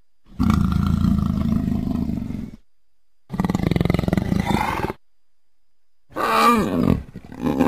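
Leopard growling: two long, low growls of about two seconds each, then about six seconds in a higher call that falls in pitch, followed by a shorter one.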